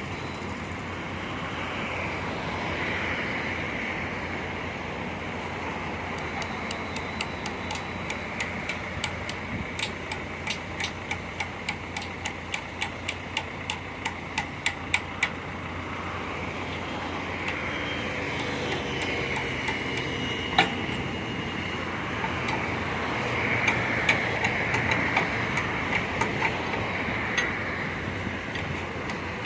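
JCB backhoe loader's diesel engine running steadily. A run of sharp, regular ticks, about two or three a second, joins it partway in, then comes again near the end.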